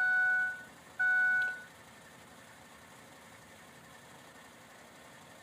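Two electronic chime beeps about a second apart, each about half a second long and fading, from the pickup's dashboard warning chime with the key on before a cold start; after them only a faint steady hiss.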